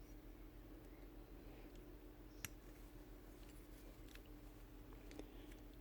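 Near silence with a faint steady hum, broken by a few light clicks as the small parts of a sander's paper clamp are handled while its rubber is replaced; the sharpest click comes about two and a half seconds in.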